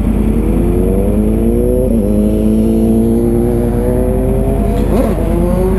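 A car accelerating hard from the intersection, its engine note climbing steadily through the revs with a short break about two seconds in, heard over the low rumble of the stationary motorcycle.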